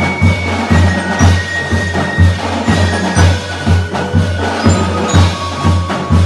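Show band music: mallet percussion such as glockenspiel, xylophone and marching bells playing a ringing melody over a steady low drum beat, about two beats a second.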